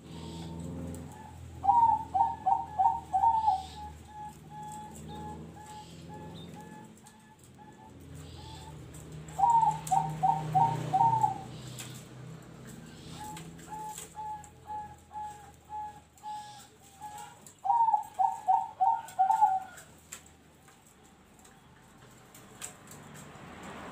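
Caged zebra dove (perkutut) singing three phrases, each a quick run of about five loud cooing notes, with softer repeated notes in between. Its song is of the style Javanese keepers call noklak nekung.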